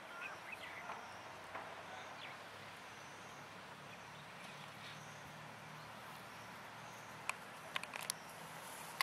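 Quiet outdoor garden ambience. A few faint bird-like chirps sound in the first two seconds, and a faint high pulse repeats steadily throughout. A few sharp clicks come about seven to eight seconds in and are the loudest sounds.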